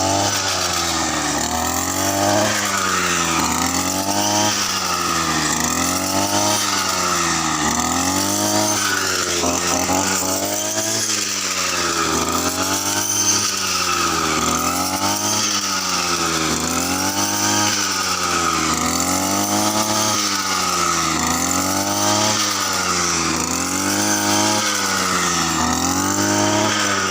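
Brush cutter engine running at high speed while cutting wheat, its pitch dipping and recovering in a regular wave about every two seconds as the blade sweeps into the stalks and out again.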